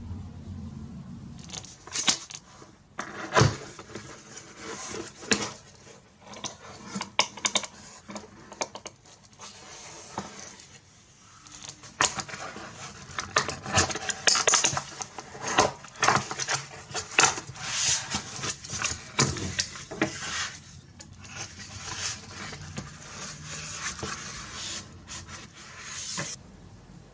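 Unboxing handling sounds from an iPhone 14 Pro Max box and phone: irregular clicks, taps, scrapes and rustles as the packaging is opened and the contents picked up and set down.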